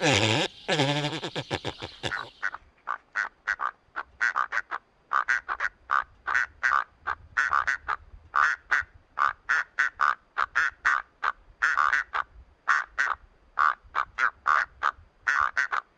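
A loud sweeping whoosh with a falling-then-rising pitch for about two seconds, then a long run of short, nasal, duck-like animal calls repeated about three times a second, with one brief pause near the end.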